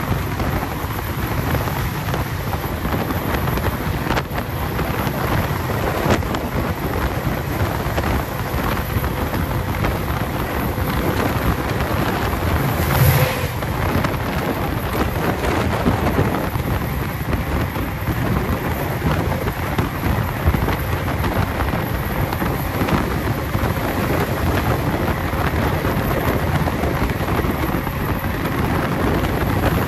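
A moving train heard from an open carriage window: steady running noise with wind buffeting the microphone, and a brief louder rush about halfway through.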